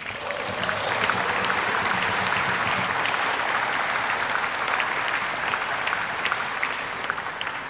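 Chamber of lawmakers applauding: a sustained round of clapping that builds over the first second, holds steady, and tapers off near the end.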